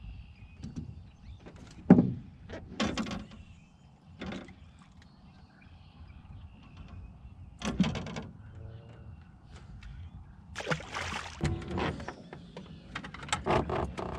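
Irregular knocks and clatter in a metal fishing boat as a freshly caught fish and tackle are handled. The sharpest knock comes about two seconds in, with a busier run of clatter near the end.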